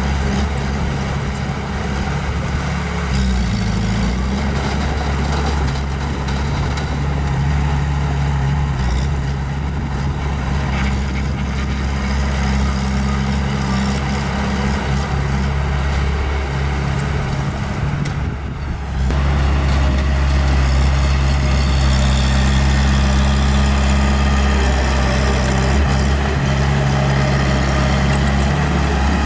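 Small bulldozer's diesel engine running steadily, with a brief break about two-thirds of the way through, after which it runs louder.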